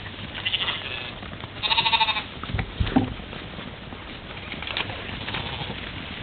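European mouflon bleating: a short call about half a second in, then a louder, wavering bleat about two seconds in. A couple of low thumps follow about three seconds in.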